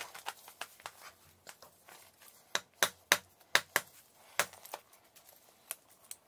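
Lumps of chalk snapping and crumbling as flakes are broken off a large block by hand: a scatter of sharp, dry cracks and clicks, with a quick run of louder snaps around the middle.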